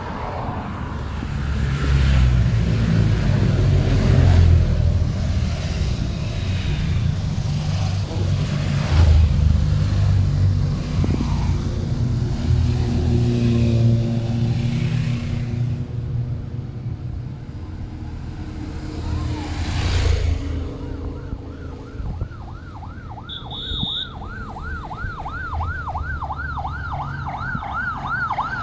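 Motorcycles and cars passing close by on the road, their engines loud and rising and falling in pitch as they go past. About two-thirds of the way in, a siren starts, sweeping quickly up and down about three times a second.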